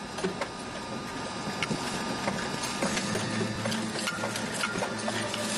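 A stopped car and its dashcam rattling and clicking rapidly and irregularly, growing louder as the earthquake's shaking builds. A low steady hum comes in about halfway.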